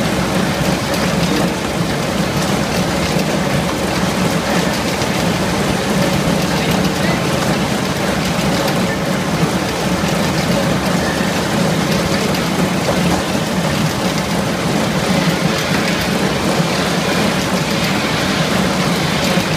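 Oblique-disc soil separator for chicory roots running steadily on its hopper: a continuous machine drone with a dense patter of roots and soil passing through.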